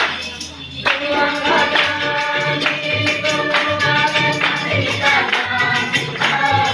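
A group of men and women singing together, choir-style, over a steady percussion beat with jingling strokes and low drum thumps. The voices drop out briefly at the start and come back in about a second in.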